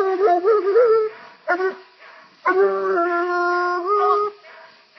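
Hunting hounds baying on a raccoon: a wavering bawl about a second long, a short bark, then a long steady drawn-out bawl of nearly two seconds.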